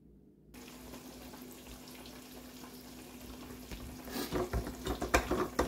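Cornmeal-battered crappie fillets frying in a pan of hot oil: a steady sizzle with a low hum under it, starting about half a second in, with crackling pops growing louder from about four seconds in.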